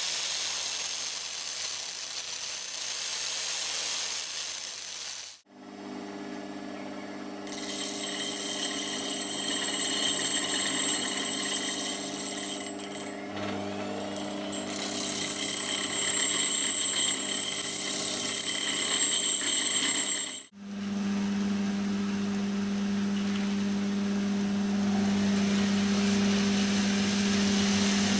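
Angle grinder with a flap disc running and grinding down a welded steel drive pulley, crowning it slightly so it centres the belt. The sound comes in three stretches with abrupt breaks about five seconds in and near twenty seconds in; the last stretch has a strong steady low hum under the grinding.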